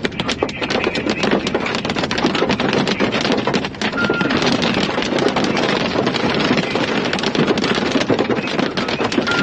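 Heavy rain pelting a moving vehicle's windshield and roof: a dense, steady patter of drops over wind and road noise. A short high beep sounds twice, about four seconds in and near the end.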